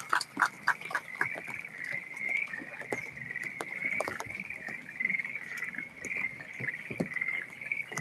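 A steady chorus of animal calls, with a run of louder calls about four a second in the first second.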